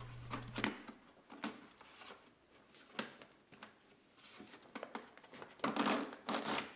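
Old paper air filter element scraping and rustling against the plastic airbox as it is worked up and out, with scattered light clicks of plastic; a louder stretch of scraping comes near the end.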